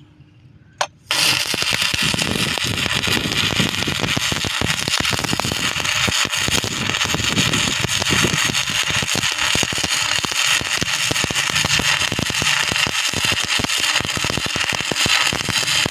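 Electric arc welding on steel: after a brief crack about a second in, the arc burns with a steady, dense crackle and sizzle.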